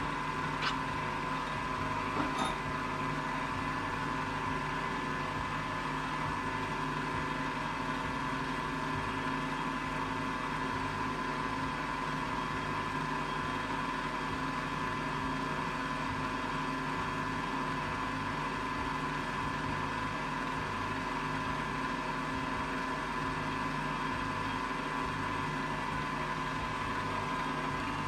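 Milling machine running with a steady multi-tone hum. A couple of light clicks come in the first few seconds.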